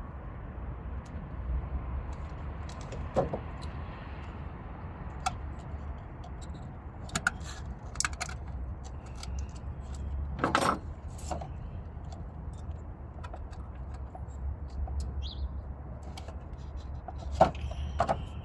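Metal tools and parts clicking and clinking at scattered moments, with a louder clatter about ten and a half seconds in and again near the end, over a steady low background rumble.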